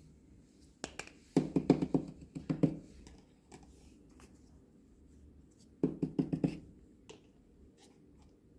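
Small toy kitchen pieces being handled, with two quick runs of light taps and clicks, the first about a second and a half in and the second near six seconds in, and a few single clicks between.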